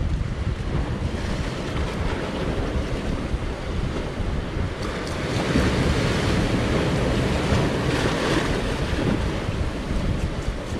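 Sea waves surging and breaking against a rocky shore, with wind buffeting the microphone; the surf swells loudest about halfway through.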